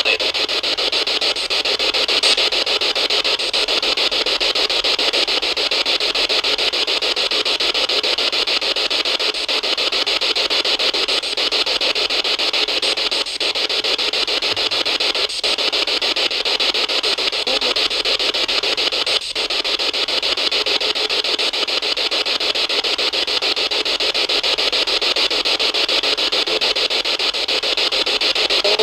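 Steady, loud hiss of static-like noise, with a few brief dropouts in the middle.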